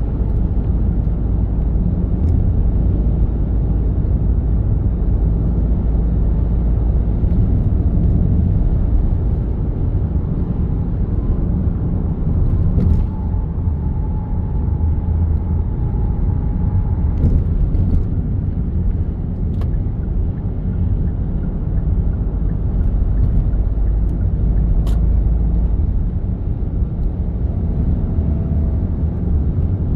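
Steady low road rumble of a car driving in traffic: engine and tyre noise. A few faint clicks and a brief faint whine sound about halfway through.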